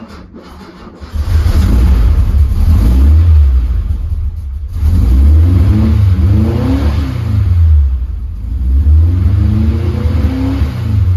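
A VW split-screen bus's air-cooled flat-four engine being started after standing for a week. The starter cranks for about a second before the engine catches, then it runs loudly and is revved up and down three times.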